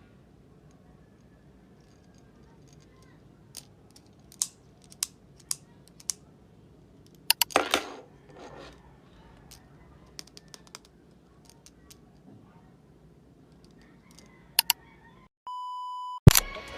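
Small hard clicks and taps of objects being handled, with a short rustle about halfway through. Near the end a steady electronic beep-like tone sounds for under a second, followed by a sharp hit.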